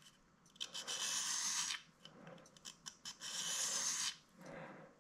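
A brazed carbide tool bit rubbed by hand on an abrasive stone to touch up its edges. It makes several rasping strokes, the longest about a second, with short pauses between them.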